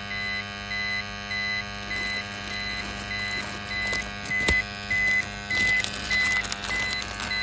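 Handheld photoionization detector (PID meter) beeping steadily, a high beep about twice a second: its alarm for a high hydrocarbon reading from fuel-oil-contaminated soil. There is rustling underneath, with a sharp click about four and a half seconds in.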